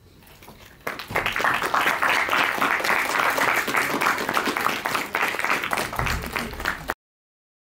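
Audience applauding, a dense patter of many hands clapping that starts about a second in and cuts off suddenly near the end.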